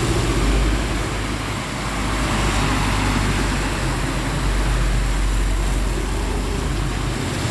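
Road traffic driving through floodwater: a truck and cars passing with a low, steady engine rumble and the hiss of tyres throwing spray off the flooded road.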